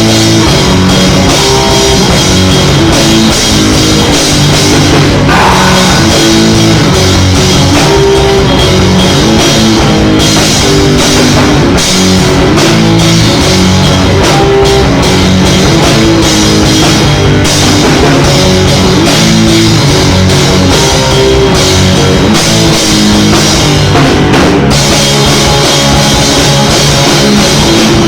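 A rock band rehearsing, playing loud and dense throughout: a drum kit with constant cymbals under guitar and bass playing a heavy riff.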